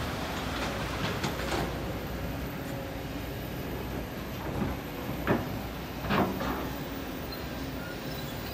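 Kobelco SK200 hydraulic excavators working in rocky sand: a steady diesel engine drone, with the steel bucket scraping and clanking against stones and soil, in a short cluster of clanks about a second in and two sharper clanks around five and six seconds.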